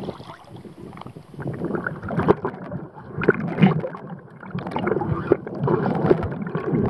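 Wind and water around a kayak at first. From about two seconds in, the sound turns muffled: water heard through an underwater camera's housing, gurgling, with irregular knocks and pops.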